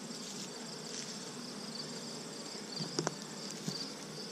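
Crickets chirping in short high chirps about once a second over a steady high insect trill, with a low hum from honey bees around the open hives. A single sharp knock sounds about three seconds in.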